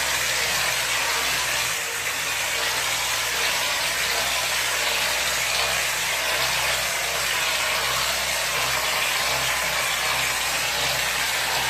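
Machine plastering: a steady hiss of mortar and compressed air jetting from a plaster spray gun onto a brick wall, over the low, steady hum of the spraying machine.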